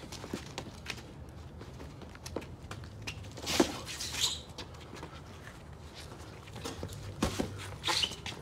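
Boxing sparring: sneakers scuffing and shuffling on concrete with short clicks throughout, and louder sharp smacks from gloved punches in two clusters, about three and a half seconds in and again around seven to eight seconds.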